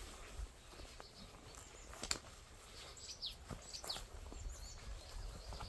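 Small birds chirping, several short high calls that slide quickly downward, repeated every second or so. A sharp click comes about two seconds in, over a low rumble.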